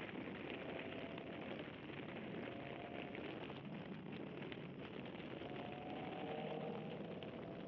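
Steady wind and road noise from a moving Toyota GT86, picked up by a GoPro mounted on its rear. A faint engine note rises slowly near the end.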